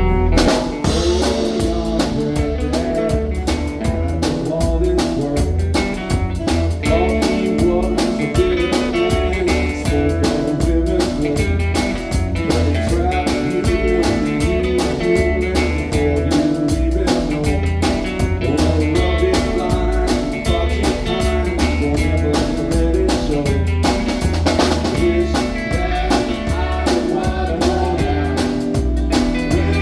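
Live band playing blues-rock with electric guitar, a bass line and drum kit keeping a steady beat.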